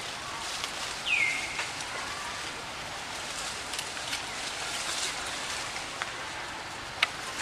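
A short animal squeal falling in pitch about a second in, over a steady hiss of outdoor background, with a sharp click near the end.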